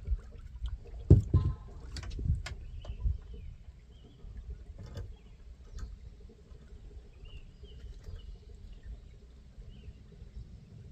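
Knocks and thumps in a boat as a freshly landed small striped bass is handled, the loudest just over a second in, followed by a low steady rumble of wind and water with a few faint high chirps.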